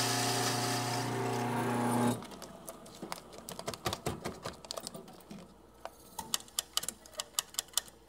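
Bunn GVH commercial coffee grinder's motor running with a steady hum as it grinds into a resealable coffee bag, cutting off abruptly about two seconds in. Then a run of light crinkling clicks as the bag is handled.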